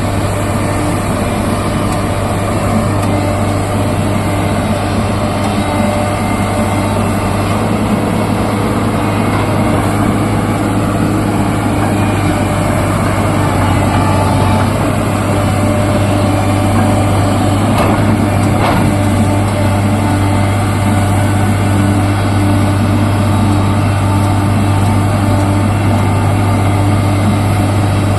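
Hitachi hydraulic excavator's diesel engine running steadily under work, with a steady low hum. There are a couple of faint knocks about two-thirds of the way through.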